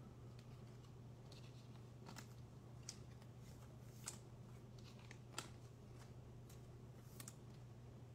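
Faint clicks and light rustling of trading cards and plastic card sleeves being handled, a handful of separate small clicks with the sharpest about four and five and a half seconds in, over a low steady hum.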